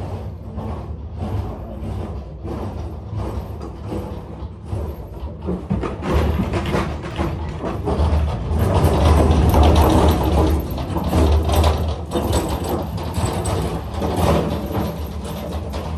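Manual pallet jack working a loaded pallet on a box truck's floor: regular creaking strokes for the first few seconds, then louder rattling and creaking as the jack rolls the load toward the rear door. A steady low hum runs underneath.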